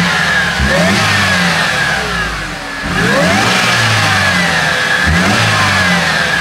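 Mercedes CLK 200 Kompressor's supercharged four-cylinder engine being revved through an aftermarket Ultrasport exhaust. Its pitch climbs sharply about four times, is held up, then falls away. A high supercharger whine rides over the exhaust note.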